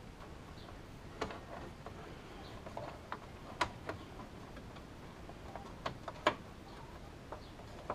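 Scattered light clicks and taps at irregular intervals, from computer parts and cables being handled and fitted in a PC case.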